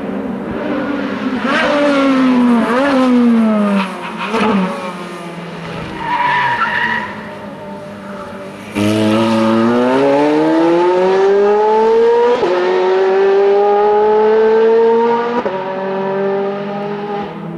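Ferrari 430 Scuderia's straight-piped 4.3-litre V8 coming down through the gears with sharp rev blips, then accelerating hard, its pitch climbing steadily and dropping at two quick upshifts.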